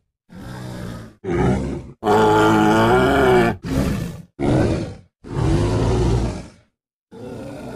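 A string of monster-movie creature roars and grunts voicing a Styracosaurus. There are about six separate calls, each cut off abruptly with brief silent gaps between them. The loudest and longest is a pitched bellow about two seconds in.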